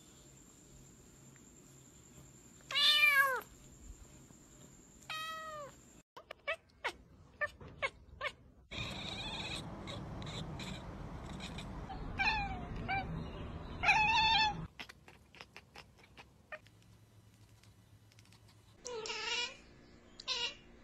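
Several domestic cats meowing in a string of short clips. There are two loud meows about three and five seconds in, more calls midway over a steady background hiss, and another meow near the end.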